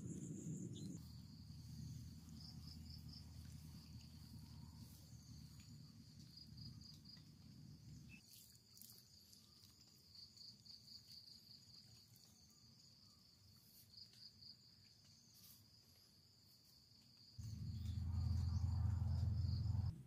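Insects chirring in the background: a steady high-pitched trill that pulses now and then, with a low rumble under it in the first part. Near the end a loud low rumble sets in and stops suddenly.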